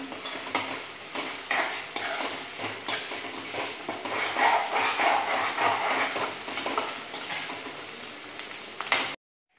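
Onion and ginger-garlic masala frying in oil in a metal kadai, sizzling steadily while a metal spoon stirs it with frequent clicks and scrapes against the pan. The sound cuts off suddenly about nine seconds in.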